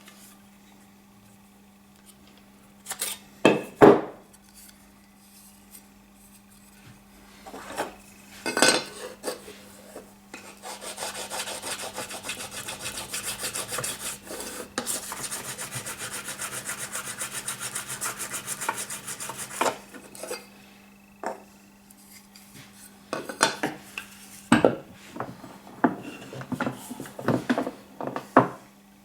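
A file stroked rapidly back and forth across the steel blade of a Stanley scraper plane, sharpening its edge, in a run of about nine seconds in the middle. Before and after it come sharp knocks and clatter of the blade and tool being handled.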